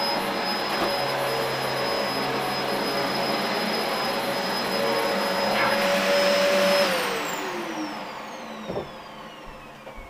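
Dyson DC04 dual-cyclone upright vacuum cleaner running with a steady rushing hum and a high whine, then switched off about seven seconds in, its motor whining down in pitch as it winds down. A short knock comes near the end.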